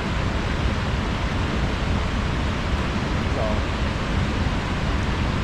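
Steady rush of fast-flowing water, an even unbroken noise.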